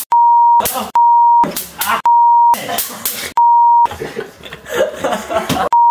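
Censor bleeps: a steady high beep about half a second long, cut in five times over a person's shouting, which is heard in the gaps between the beeps.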